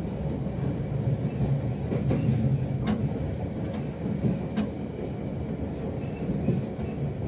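Commuter train running through a rail tunnel, heard on board: a steady low rumble of the wheels on the rails, with a few sharp clicks about two, three and four and a half seconds in.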